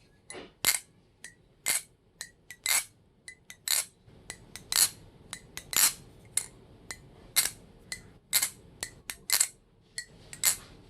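Balisong (butterfly knife) being flipped for a sound test after tuning: sharp metallic clacks of the handles and latch hitting against each other, some with a short ring, coming irregularly about one or two a second.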